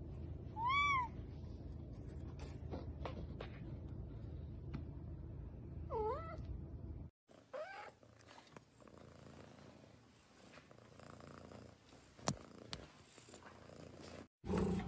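Cats meowing: a short, high, rising-and-falling meow about a second in and a lower meow near six seconds, over a steady low rumble. After a cut, another short meow and a single sharp click.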